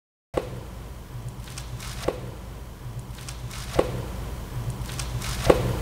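Evenly spaced soft knocks over a low steady hum, alternating a duller knock with a sharper tick, each coming back about every 1.7 seconds.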